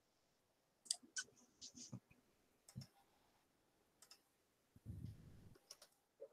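Near silence with several faint, scattered computer mouse clicks, and a soft low rustle about five seconds in.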